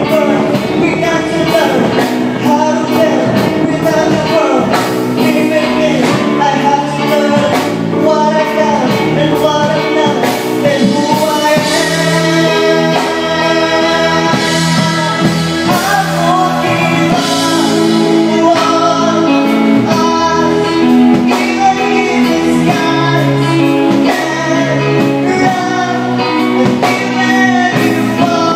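A live band performing a song, a singer's voice carried over keyboard and band accompaniment.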